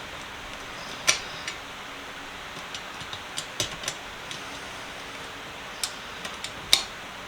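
Metal sockets clicking and clinking as they are fitted one by one into a socket holder: a scatter of sharp clicks, the loudest about a second in and near the end, over a steady faint hiss.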